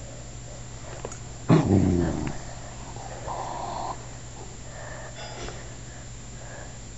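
Cockapoo (cocker spaniel–poodle mix) dog barking once, a deep bark about one and a half seconds in, followed a couple of seconds later by a softer, higher-pitched sound lasting about half a second.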